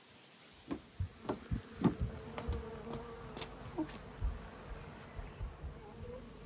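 Honeybees buzzing, a steady hum that dips in pitch for a moment, mixed with a series of sharp knocks and thumps, the loudest about two seconds in.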